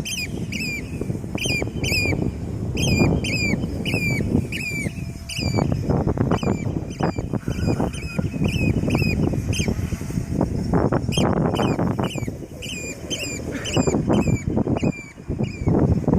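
A bird calling over and over in short, sharp, hooked calls, several a second, in an agitated reaction to a quadcopter flying near it. The calls pause briefly about two thirds of the way through, then resume. A heavy, uneven low rumble runs underneath.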